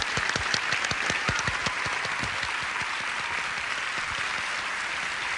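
Studio audience applauding. Distinct sharp claps stand out in the first couple of seconds, then blend into a steady wash of clapping.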